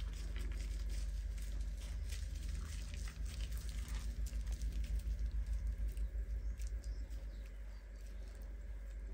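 Hands rubbing and lathering a wet kitten's fur in a sink: soft wet squelches, drips and small clicks over a low hum, with a low pulsing of a few beats a second in the middle.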